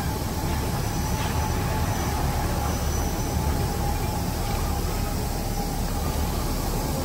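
SRT diesel railcar standing at the platform with its engine running: a steady low rumble with a faint, even whine held over it.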